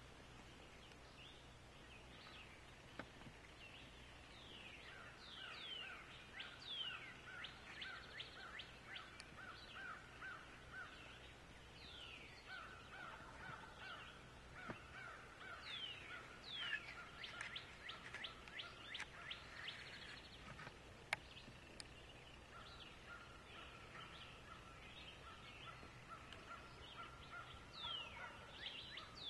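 Faint wild turkey gobbling mixed with other birds' calls: bursts of quick falling notes come and go, over long runs of evenly spaced short chirps.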